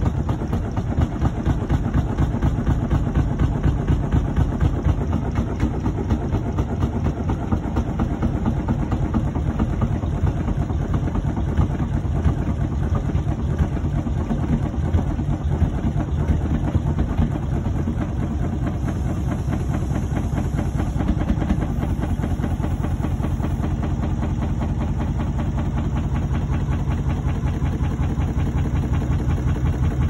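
Hotpoint front-loading washing machine spinning its drum of laundry fast: a loud, steady machine noise with a fast, even pulse.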